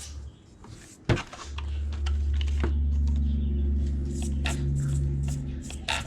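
Small electric motor and drivetrain of an Axial SCX24 Deadbolt RC crawler running steadily at a constant pitch for a few seconds after a sharp click, as the freshly wired ESC and motor are tested.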